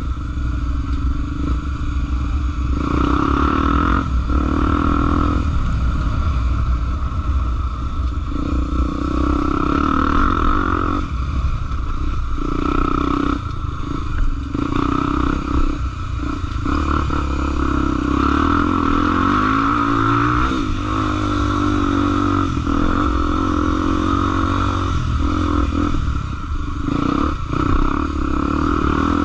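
Trail motorcycle's engine running under way, the throttle easing off and opening again every few seconds.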